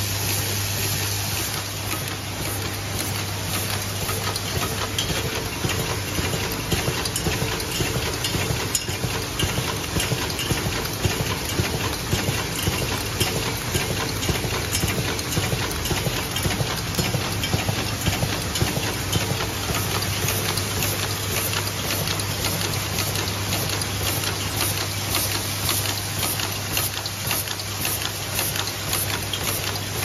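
Zipper slider assembly machine running, its vibratory bowl feeder giving a low steady hum while the metal zipper puller tabs rattle and clatter inside it in a dense run of small clicks.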